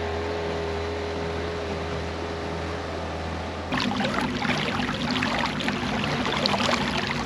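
A boat motor running steadily with a low hum. About four seconds in, the sound changes abruptly to a louder, rougher run with water noise.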